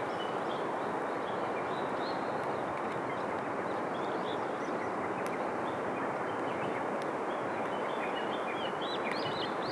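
A river running with a steady rush, with small birds chirping over it, the chirps busier near the end.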